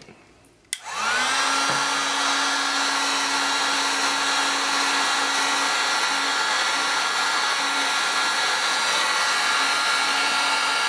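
Electric heat gun switched on with a click a little under a second in, its fan spinning up with a short rising whine, then blowing steadily with a low hum under the rush of air while shrinking heat-shrink tubing.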